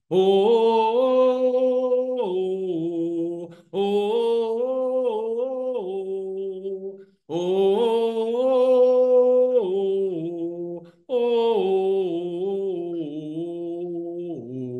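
A man singing unaccompanied: four long phrases of a slow song, each held on notes and stepping down in pitch at its end, with short breaths between them.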